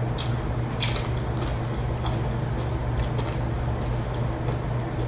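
A steady low hum with a few short, sharp clicks scattered through it.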